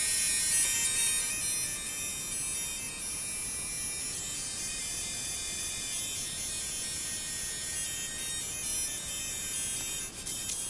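Electronic chiptune music leaking from V-MODA Crossfade M-100 headphones held near the microphone. It is thin and tinny, mostly high notes with little bass.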